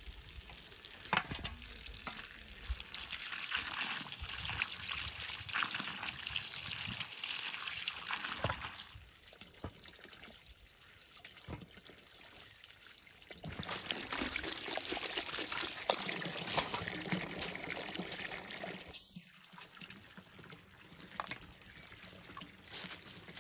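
Water running from a garden hose into a bowl as greens and vegetables are rinsed by hand in the stream, the splashing louder in two spells, with a few knocks of bowls being handled.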